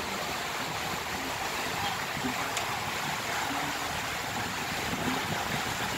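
Steady rushing of water and air from a moving open river cruise boat.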